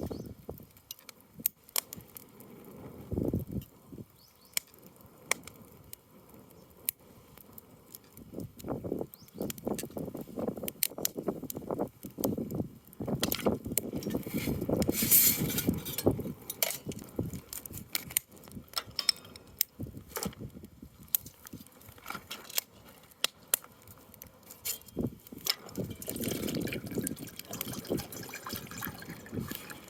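Camping gear being handled: scattered clinks, knocks and rustling, with a louder stretch of handling noise around the middle.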